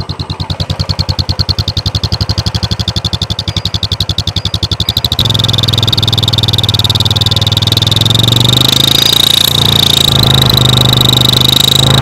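Royal Enfield Classic 350's single-cylinder engine idling, its exhaust pulses driving an aluminium turbo whistle held at the silencer tip. At first the whistle comes in short beats, one with each exhaust pulse. About five seconds in it becomes a steady, strong, high whistle.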